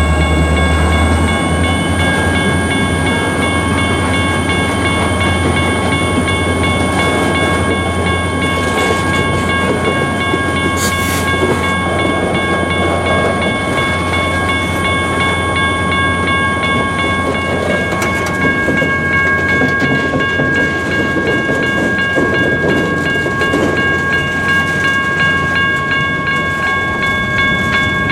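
Freight train cars rolling steadily past at close range, with several steady high-pitched squealing tones held throughout over the running noise of the wheels and cars.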